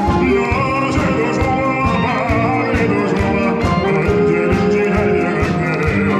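Wind band, brass and woodwinds, playing an upbeat song over a steady drum beat, with a bass singer's voice through a microphone.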